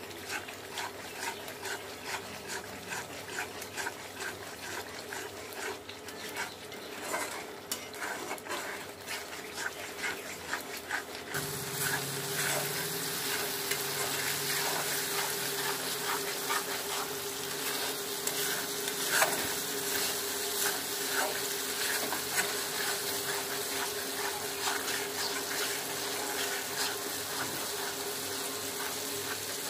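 Spice paste sizzling as it fries in oil in a metal karahi, while a spatula stirs and scrapes the pan in many short strokes. The sizzle turns louder and brighter about eleven seconds in. The paste is being fried down before hot water goes in.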